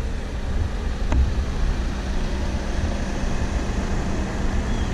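A motor running steadily with a low hum and rumble, with a single click about a second in.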